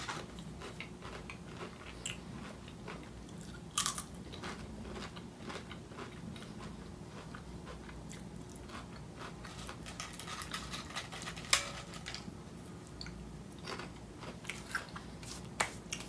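A person biting and chewing Pringles potato crisps, a few sharp crunches standing out among quieter chewing.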